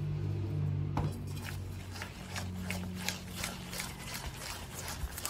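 Silicone spatula stirring thick cookie batter in a stainless steel mixing bowl: rhythmic scraping strokes against the bowl, about three a second, starting about a second in. A low steady hum sounds under the first few seconds and fades out.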